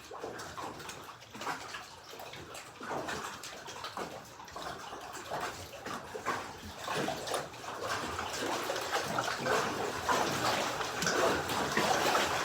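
Water lapping and sloshing in small, irregular splashes, growing louder in the second half.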